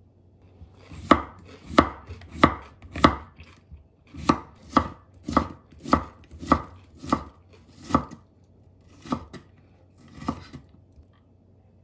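Chef's knife slicing a cucumber into thin strips on a wooden cutting board: about thirteen crisp cuts, each a short crunch through the cucumber ending in a knock on the board. They come at roughly one every half second, with a brief pause about a third of the way in and wider spacing near the end.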